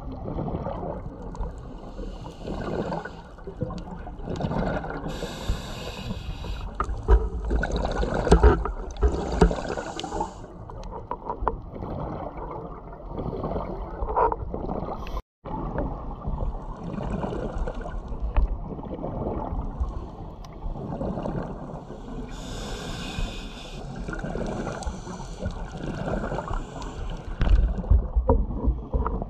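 A scuba diver breathing through a regulator underwater: each breath in is a hiss lasting a second or two, and each breath out is a burst of bubbling and gurgling. The sound drops out completely for a moment about halfway through.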